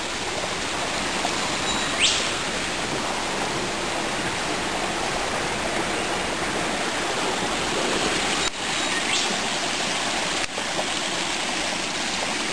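Steady rush of a rainforest creek and waterfall, running high after recent rains. A brief high whistle sounds over it about two seconds in, and a fainter one near nine seconds.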